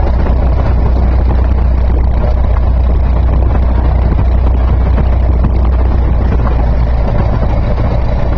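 Single-engine Cessna's piston engine and propeller droning steadily, heard inside the cockpit while the plane rolls along the runway after landing.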